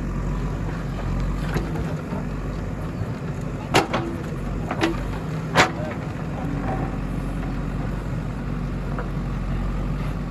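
JCB 3DX backhoe loader's diesel engine running steadily while digging, with three sharp knocks about a second apart near the middle.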